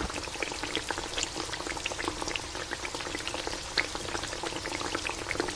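Thick beef mechado stew sauce bubbling as it simmers in a pan: a steady patter of small pops, the sauce reducing and thickening.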